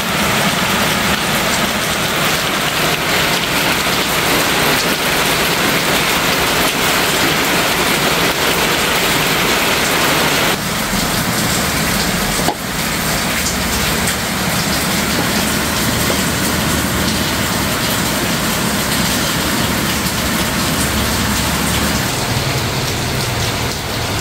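Steady, even hiss of rain falling; the hiss turns slightly duller about ten seconds in, with a single brief click shortly after.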